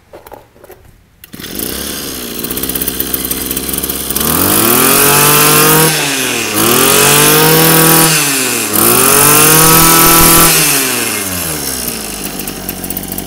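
Kawasaki TG20 20cc two-stroke brush cutter engine pull-started, catching about a second in and idling. It is then revved up three times, each a rising whine that falls back, and settles back to idle, running smoothly.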